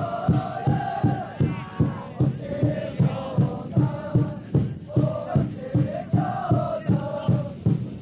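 A stadium cheering section chanting in unison over a steady drumbeat, about two to three beats a second.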